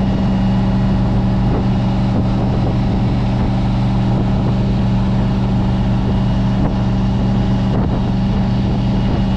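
Boat's swapped-in GM LS V8 engine running steadily under way at an unchanging speed, a deep even drone over the rush of the hull and wake.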